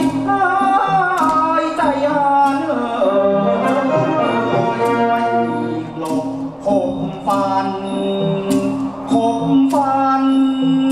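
Thai traditional ensemble music for a Khon masked dance-drama: a wavering, bending melody carried over sharp percussion strikes that fall at a steady pulse, somewhat under a second apart.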